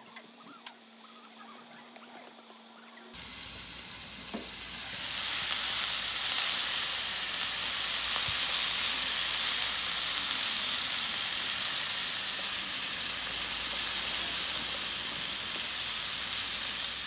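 Beef cubes searing in a hot frying pan, sizzling with a steady hiss. It is faint at first, steps up about three seconds in and is loud from about five seconds in.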